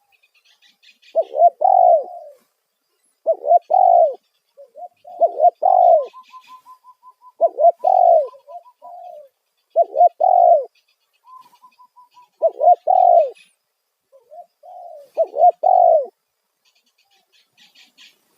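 Spotted dove (tekukur) cooing loudly: seven phrases of several hoarse coos, one every two to three seconds, its calling song. Faint chirps of small birds are heard between the phrases.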